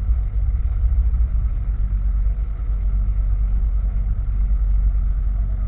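Single-cylinder engine of a 2022 Honda CG 160 Titan motorcycle running steadily with a deep, even rumble, its exhaust set up to imitate the sound of a BMW 310.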